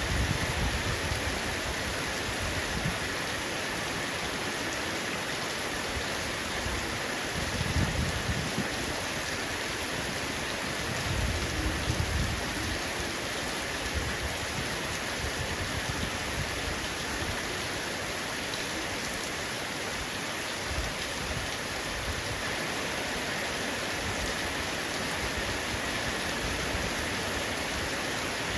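Heavy rain falling on a roof, a steady dense hiss of drops. A few short low rumbles rise under it, around eight and twelve seconds in.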